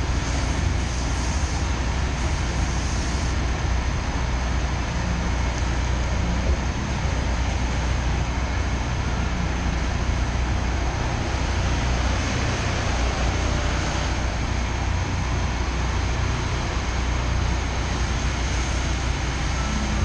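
Steady low rumble of city traffic, with an articulated hybrid city bus driving past partway through.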